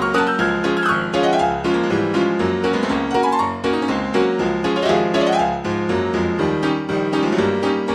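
Piano music with a steady bass line and quick rising runs of notes about every two seconds.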